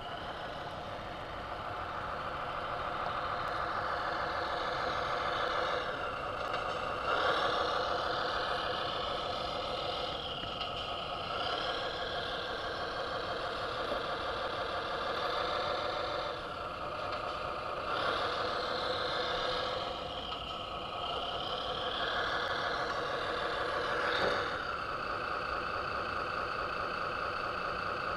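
Radio-controlled dump truck's electronic sound module playing a diesel truck engine through a small speaker, idling and revving up several times as the truck is driven.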